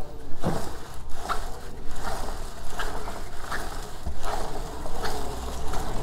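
A cotton rag being rubbed along a motorcycle drive chain in repeated wiping strokes, about one or two a second, to wipe off chain cleaner after brushing.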